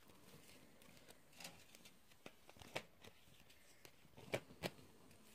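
Tarot cards being handled on a table: about five soft clicks and taps, the loudest two close together near the end, over a quiet room.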